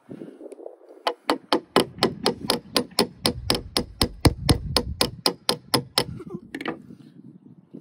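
An electrician's hammer tapping a metal punch to drive the pivot pin into a folding knife: a quick, even run of about twenty light metal-on-metal taps, roughly four a second, starting about a second in and stopping near the six-second mark.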